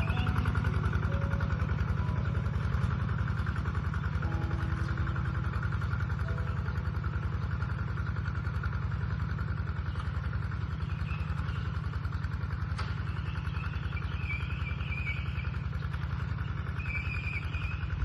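Single-cylinder diesel engine of a Kubota RT-120 Plus walk-behind two-wheel tractor running steadily under ploughing load, a fast even chugging. It grows slightly fainter as the tractor moves away.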